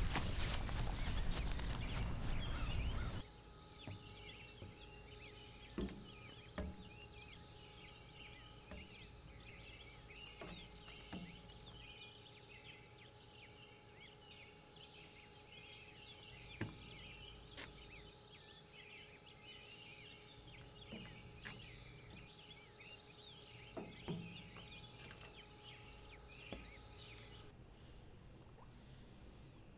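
Summer outdoor ambience of insects chirping and trilling, with a few dull thumps scattered through it. It opens with about three seconds of loud clattering noise that cuts off abruptly. Near the end it changes to quiet indoor room tone.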